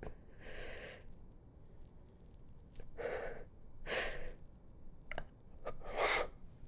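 A person breathing heavily: four or so loud breaths about half a second each, spaced a second or two apart, with faint clicks between.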